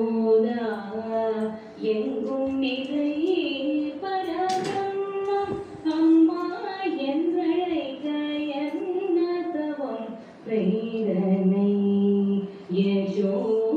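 A woman singing a melodic song with long held, sliding notes. A single sharp click about four and a half seconds in.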